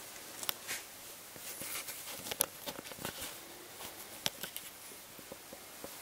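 Scattered light clicks at uneven intervals over a soft hiss, all at a low level.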